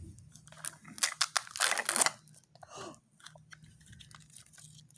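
Crinkly plastic toy packaging being handled and torn open, in a few short crackling bursts, loudest about one to two seconds in, then fainter rustles and clicks.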